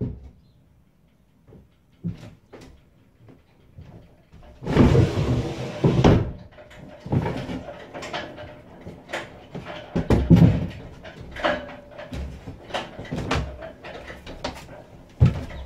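Footsteps and knocks of a person boarding a small sailboat and climbing down its wooden companionway steps into the cabin: irregular heavy thuds and bumps, starting about four and a half seconds in after a few faint clicks.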